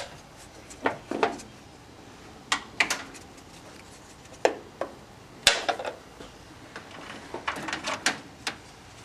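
Irregular sharp clicks and small knocks, about a dozen, from a plastic automotive relay and wire connectors being handled and fitted by hand in a pickup's engine bay.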